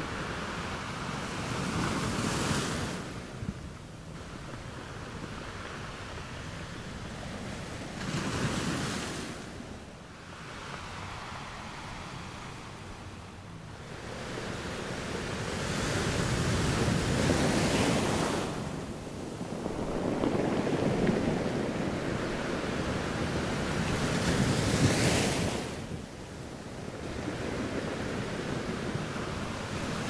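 Small sea waves breaking and washing up a sandy beach, the surf swelling and fading every several seconds.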